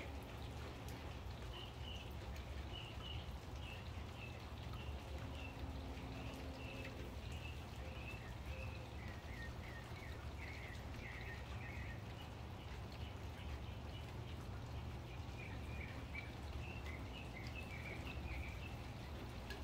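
Light rain falling steadily, with a bird calling in a long run of short, high chirps, pausing for a few seconds past the middle and then starting again.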